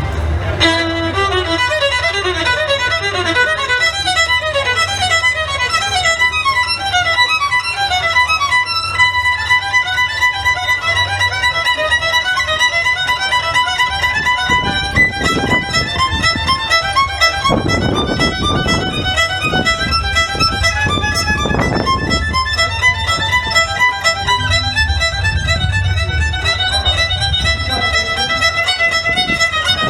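Solo violin playing a fast, running line of quick notes.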